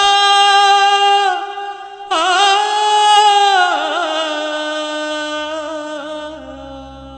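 Background song: a single voice holding long, wavering melodic notes in two phrases, the second starting about two seconds in and falling in pitch near four seconds, then fading as a low drone comes in.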